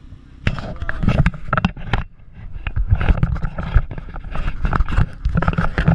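Handling noise on a small action camera: irregular knocks, scrapes and rubbing against its microphone as it is swung around, over a low rumble, with a brief lull about two seconds in.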